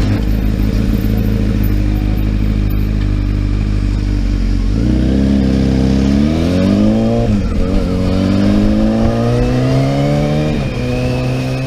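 Sport-bike engine running steadily, then accelerating with rising revs about five seconds in, the pitch dropping twice at upshifts before it settles to a steady cruise.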